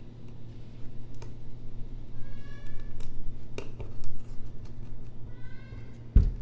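Small sharp clicks and taps of hand tools and parts during iPhone X reassembly, with a heavier low thump near the end. Two short high-pitched mewing calls come about two and five seconds in.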